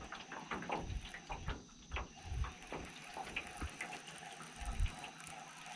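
Water lapping and splashing quietly against the hull of an aluminium fishing boat, with irregular light ticks and a few soft low knocks.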